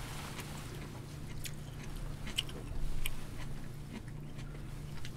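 People eating: chewing, with a few short light clicks and rustles from chopsticks, lettuce wraps and plastic food containers.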